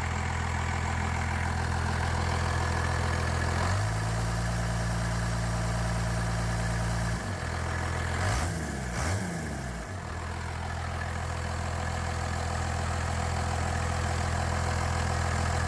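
12-valve Cummins inline-six turbo diesel idling steadily on a remanufactured Bosch VE injection pump, running the way it is supposed to. Its engine speed steps up about four seconds in, drops back near seven seconds, and rises and falls quickly a few times before settling into a steady idle again.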